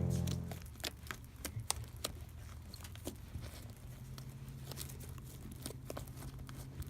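Background music stops about half a second in. Then slime is handled and squished, making scattered soft clicks and crackles.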